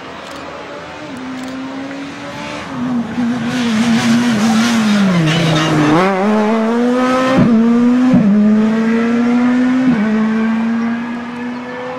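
Škoda Fabia S2000 rally car's engine coming in at high revs, its pitch falling as it brakes and slows for a corner about halfway. It then accelerates away through three quick upshifts, each heard as a sudden drop in pitch before it climbs again. It is loudest through the corner.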